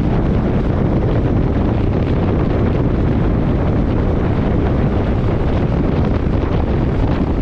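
Steady wind buffeting on the camera microphone of a moving motorcycle, with the Kawasaki KLE500's parallel-twin engine running underneath at road speed.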